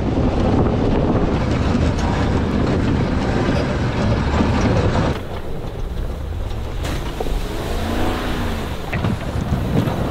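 Ram 2500 pickup pushing deep snow with a Hiniker V-plow: the truck's engine running under load, with the rumble and hiss of the blade shoving snow, loudest in the first half. After a change about five seconds in, the engine is heard less loudly, its note rising and falling a few times.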